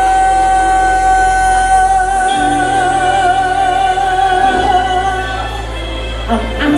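A woman singing one long, high held note that begins to waver with vibrato in its second half, over backing music whose bass line changes note twice.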